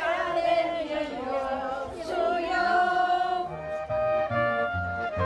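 A group of voices singing together without accompaniment. About three and a half seconds in, this changes to a folk band of double bass, accordion, clarinets and trumpet playing, with a pulsing bass line under held notes.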